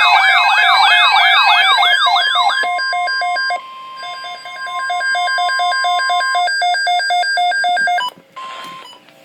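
Electronic emergency-alert siren: a fast warbling wail of about four sweeps a second for about two and a half seconds. It changes to rapid pulsing beeps over a steady tone, which cut off suddenly about eight seconds in, followed by a brief burst of static. These are the attention tones that open a severe thunderstorm watch alert.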